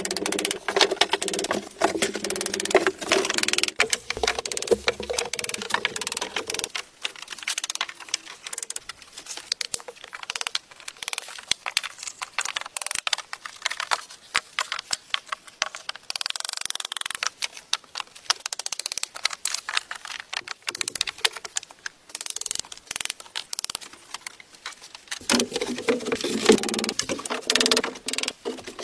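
Claw hammer tapping small nails into wood, many quick light strikes in irregular runs, with knocks of wooden slices and planks being set in place.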